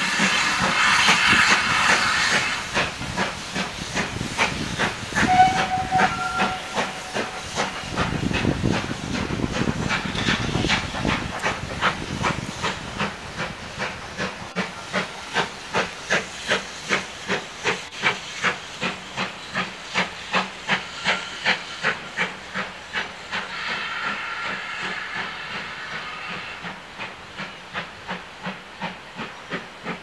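GWR Manor class 4-6-0 steam locomotive pulling away with its train: a loud hiss of steam at first, then an even beat of exhaust chuffs, about two a second, that slowly fades as it draws off.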